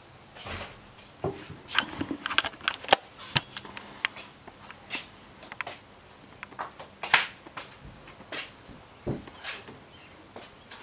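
Irregular light clicks and knocks, a dozen or more short ones scattered unevenly, with quiet between them.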